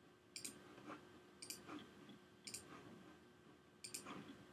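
Faint clicking at a computer: four sharp clicks about a second apart, each followed shortly by a softer one.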